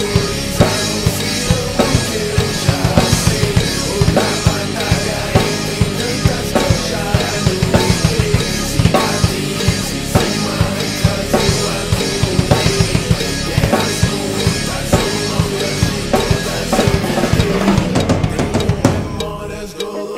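Instrumental rap beat driven by a heavy drum kit: booming bass drum, snare and rimshots over a deep bass line, with no vocals. The beat drops away shortly before the end.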